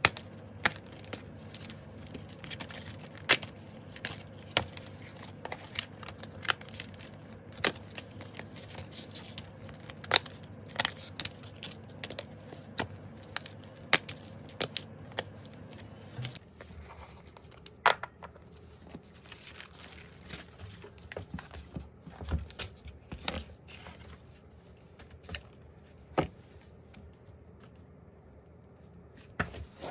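Clear plastic photocard sleeves and pocket pages being handled: cards slid in and out, the plastic crinkling and rustling, with many sharp small clicks and taps.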